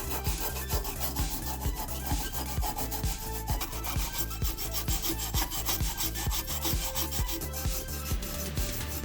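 Repeated rubbing strokes of hand work on a diecast model car, over background music with a steady beat.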